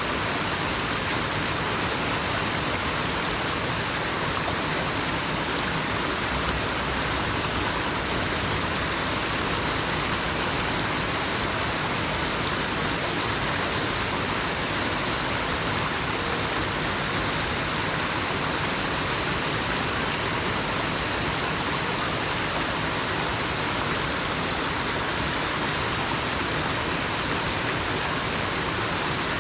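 Waterfall: falling water rushing as a steady, even hiss.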